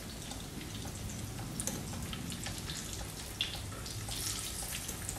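Breaded lentil croquettes shallow-frying in vegetable oil in a frying pan: a steady soft sizzle with a few small crackles and clicks scattered through it. The cook says the oil is not hot enough.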